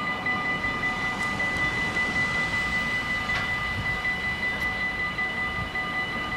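Electronic level-crossing bells of a Dutch automatic half-barrier crossing ringing in a rapid, continuous, high-pitched peal while the barriers are down, signalling that a train is approaching. A low rumble runs underneath.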